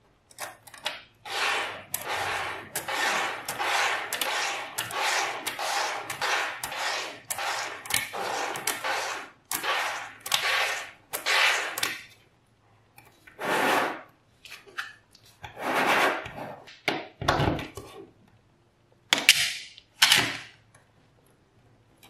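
Small magnetic balls clicking and rattling together as chains of them snap side by side into a flat sheet. A dense run of short rattling bursts comes first, then a few separate snaps spaced out through the rest.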